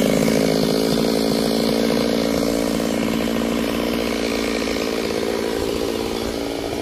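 Stihl chainsaw running steadily at high revs under load, cutting through a large mahogany log.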